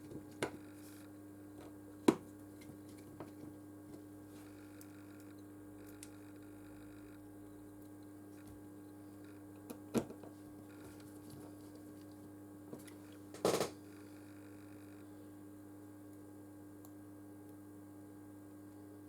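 Steady low electrical hum, with a few sharp small clicks and taps from small tools on the phone as its screws are put back in. The loudest click comes about two seconds in, and there is a double click near the end.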